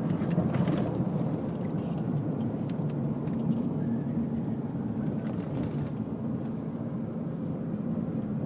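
Road and engine noise of a truck driving, heard from inside the cab: a steady low rumble, with a few light clicks near the start.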